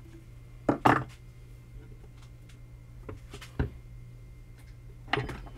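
Plastic one-handed bar clamps being handled and tightened on a glue-up: a few sharp clicks and knocks, the loudest about a second in, over a steady low hum.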